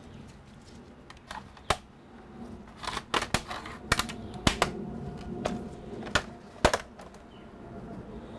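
Plastic snap-clips of a laptop's bottom case popping loose as the case is pried off the chassis: a string of sharp, irregular clicks and snaps.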